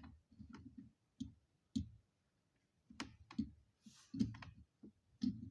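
Irregular sharp clicks and light knocks of hand tools and metal being handled as vise grips (locking pliers) are worked onto a chainsaw fuel line to clamp it.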